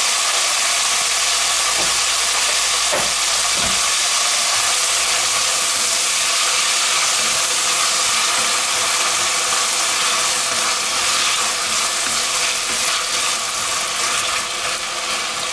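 Diced soup vegetables sizzling steadily as they fry in hot clarified butter in an enamelled cast-iron casserole, being browned. A wooden spatula stirs them through, with a few knocks in the first few seconds.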